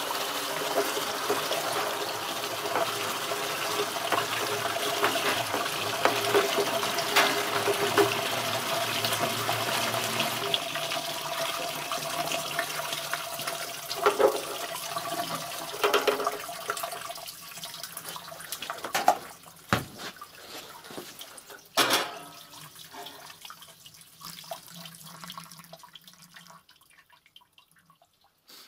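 Water running from a hose into the solution tank of an IGEBA TF35 thermal fogger, flushing the tank with clear water: a steady rush of water that thins and dies away in the second half. A few sharp knocks of handling come in the later part.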